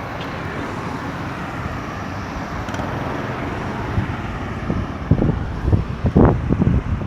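Road traffic: a vehicle passing with a steady rush of tyre and engine noise that swells a little around the middle. Wind buffets the microphone in uneven gusts near the end.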